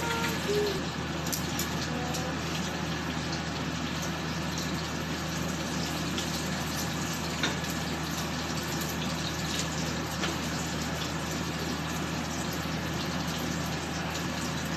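Pork frying in hot oil in a pan: a steady sizzle with scattered small pops of spattering oil, one sharper pop about halfway through.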